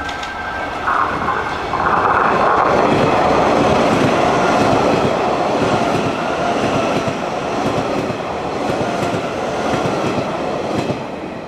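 Electric train passing close by: a rush of wheel and running noise that builds about a second in, holds with wheels clacking over rail joints, then fades near the end.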